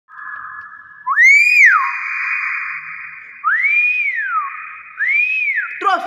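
Nias hill myna giving three loud whistles. Each one rises to a peak and glides back down.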